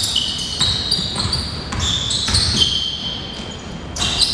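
Basketball game on a hardwood gym floor: the ball bouncing and sneakers squeaking in short high squeals as players move and stop. Sounds echo in a large gym.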